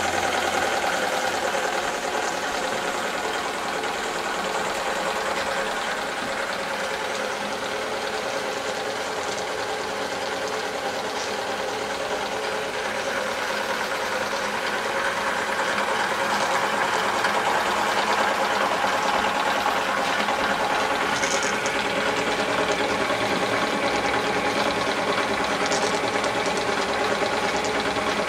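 Wilesco D22 model steam engine running steadily, turning belt-driven line shafts and pulleys with a continuous mechanical running sound.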